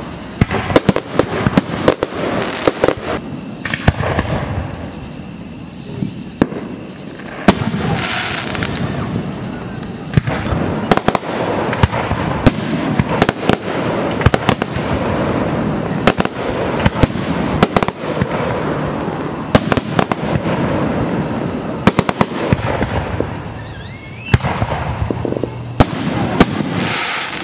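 Aerial fireworks display: shells bursting in a dense run of sharp bangs and crackle, some close and some farther off. Near the end comes a rising whistle.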